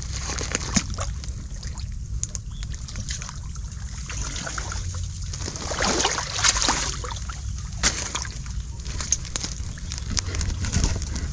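Shallow muddy water sloshing and splashing as hands grope through the silt along a reed bank, with scattered small splashes and drips and a busier flurry of splashing about six to seven seconds in, over a steady low rumble.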